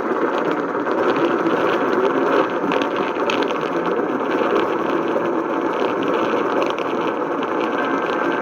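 A steady rushing noise like radio static that cuts in abruptly and runs on evenly, with a faint steady tone coming in near the end.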